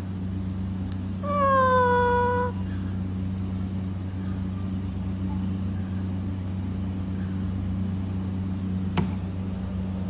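Alexandrine parakeet giving one drawn-out call about a second in, which slides down in pitch and then holds steady. A single sharp click comes near the end, over a steady low hum.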